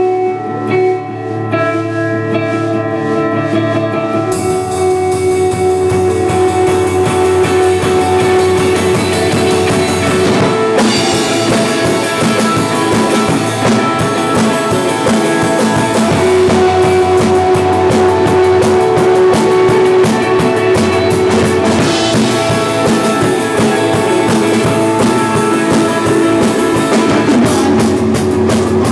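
Live rock band with electric guitars and drum kit: a guitar plays alone at first, then drums and the rest of the band come in about four seconds in and play on together.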